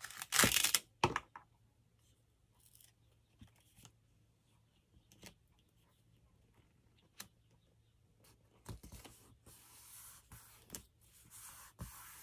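A short paper rip about half a second in, then quieter handling of paper with small taps and a longer soft rustle near the end.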